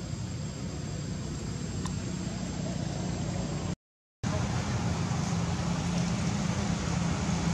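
Steady outdoor background noise, a low rumble under an even hiss, broken by half a second of dead silence about four seconds in.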